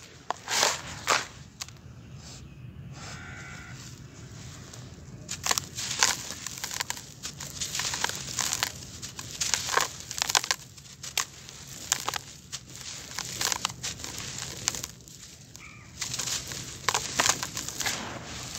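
Handfuls of dry, gritty grey sand-and-cement powder crumbled between the fingers and dropped back into a tub, giving repeated bursts of crunchy, sandy crackling and pattering. There is a quieter pause about two to five seconds in.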